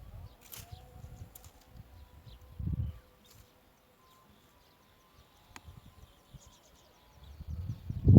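Gusts of low wind rumble on the microphone, strongest about three seconds in, with faint, short, high bird chirps at the start and again near the end.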